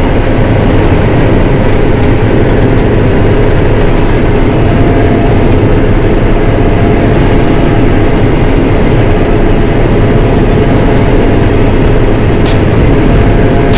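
John Deere 9500 combine running while harvesting, its diesel engine and threshing machinery making a loud, steady rumble. A brief high hiss sounds about twelve seconds in.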